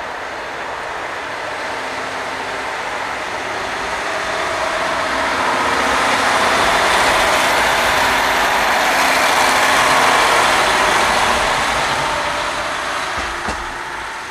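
KiHa 40 single-car diesel railcar pulling away from the station: its diesel engine works under power and grows louder as the car runs past close by, then fades as it moves off. A single short knock near the end.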